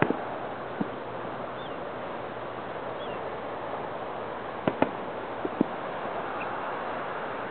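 Distant aerial firework shells bursting: short sharp pops, three in the first second and four more around five seconds in, over a steady outdoor hiss.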